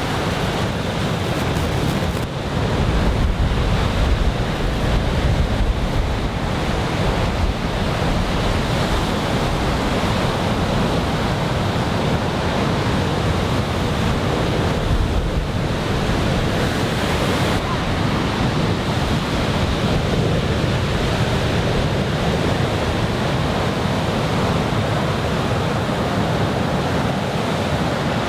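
Heavy surf from a typhoon swell breaking and washing on a beach, a steady rushing roar of waves. Wind buffets the microphone with a low rumble, strongest a few seconds in.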